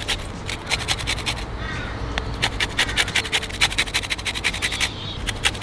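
A lemon being zested on a fine-toothed hand grater (a rasp grater), its peel scraped across the blade in quick, regular scratchy strokes, several a second.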